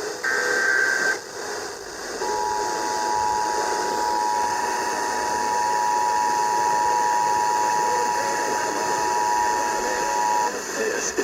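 Emergency Alert System broadcast received over the radio: the last of the screeching SAME data header bursts lasts about a second, then after a short pause the two-tone attention signal (853 and 960 Hz sounded together) holds steady for about eight seconds and cuts off, all over a steady hiss of radio static.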